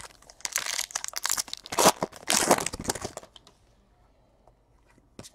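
Trading-card pack wrapper crinkling and cards rustling as a stack of baseball cards is handled, for about three seconds, then quiet apart from one faint click near the end.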